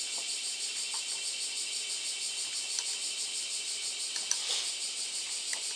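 Cicadas singing in a steady chorus with a fast, even pulse, with a few faint light clicks as a nut on a model car's damper is worked off by hand.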